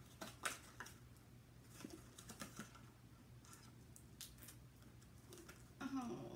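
Faint scattered clicks and crinkles of a pacifier's small cardboard-and-plastic package being opened by hand, with a short hummed voice sound near the end.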